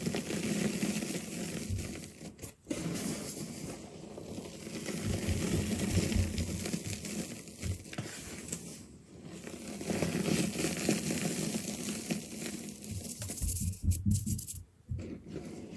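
Crunchy homemade reformed gym-chalk blocks, mixed with liquid laundry detergent, crushed and crumbled between bare hands: dense crunching and crackling of breaking chalk and sifting powder. It comes in waves, with a few brief pauses.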